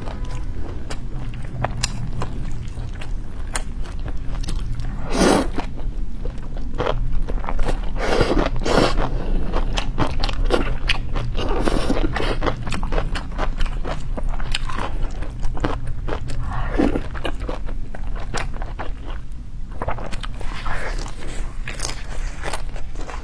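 Close-miked eating: a person chewing and biting food, with many small clicks and crunches and a few louder mouth noises, over a steady low hum.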